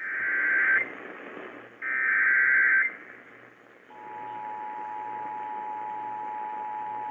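Emergency Alert System tones received over AM radio with static hiss. Two buzzy digital data bursts, each about a second long, are the SAME header that codes the alert. About four seconds in, the steady two-tone attention signal begins, announcing a flash flood warning.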